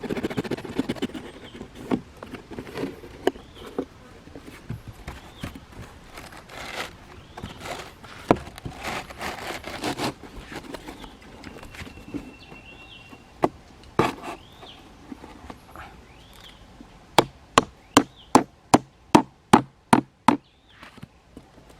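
Wood being worked by hand: scattered knocks and rustling, then a run of about ten quick, even chopping strikes, about three a second, near the end.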